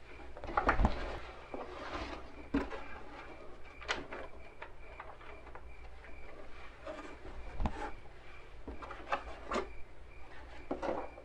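Small objects being handled and sorted on a table: rustling and rubbing with scattered light knocks, the loudest about a second in.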